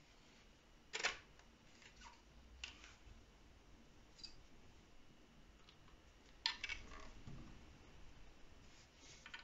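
Quiet handling noise of a 3D-printed plastic rifle stock: a few light clicks and rubs of hard plastic. The sharpest click comes about a second in, and a short cluster of clicks comes about six and a half seconds in.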